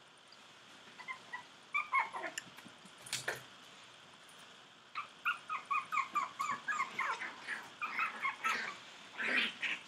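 Chihuahua puppies yipping in short, high calls, a few at first, then a quick run of them through the second half. A single sharp knock about three seconds in.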